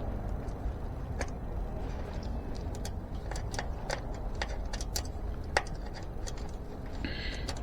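Light metallic clicks and ticks at irregular intervals from a spoke wrench working on bicycle spokes and nipples while loose spokes are tightened, over a low steady hum.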